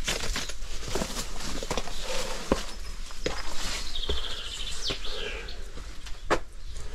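Footsteps crunching over rubble and undergrowth, a sharp step every second or so. A songbird sings a short trill and a falling note midway through.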